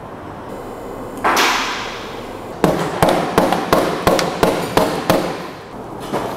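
A mallet strikes the plastic valve cover of a BMW N62 V8 about eight times, roughly three sharp knocks a second, to knock the cover loose from the cylinder head. A brief rushing noise comes about a second before the knocks.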